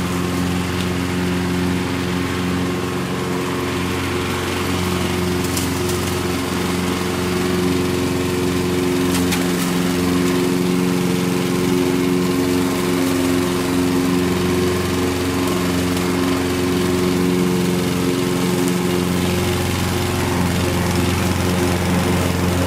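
Honda HR 214 SE lawn mower's Honda GXV120 118 cc single-cylinder four-stroke engine running steadily at working speed while mowing grass.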